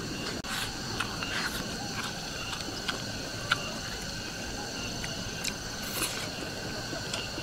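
Eating sounds: wooden chopsticks clicking against a bowl of rice, with chewing. Behind them runs a steady chirring of insects, and there is one sharper click about three and a half seconds in.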